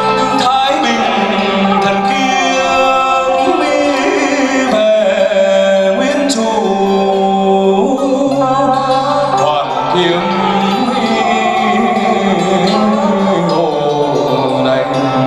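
Traditional Vietnamese water puppet theatre music: singing over traditional instruments, with sustained notes and gliding melodic lines.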